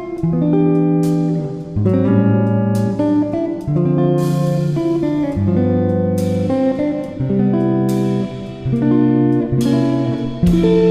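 Background music: guitar playing held chords that change every second or two, with strums.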